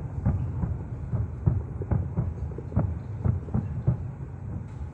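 Distant aerial fireworks going off in a rapid, irregular string of muffled booms over a low rumble, about two or three a second, thinning out and growing fainter toward the end.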